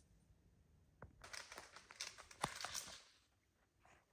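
Faint rustling and crackling for about two seconds, starting about a second in, in otherwise near silence.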